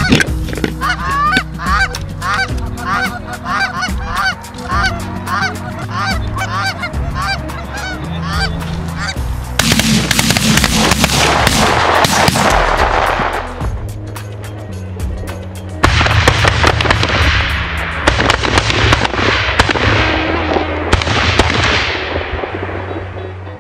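A flock of Canada geese honking, a rapid run of calls about two a second, over background music. About ten seconds in the honks give way to louder, harsher music.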